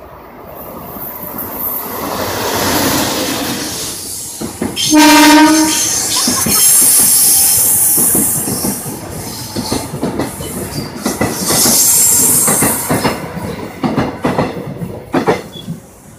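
Korail Line 1 resistance-controlled electric train (1000-series type) running on the track, its wheels clattering over rail joints and squealing. A single short horn blast about five seconds in is the loudest sound.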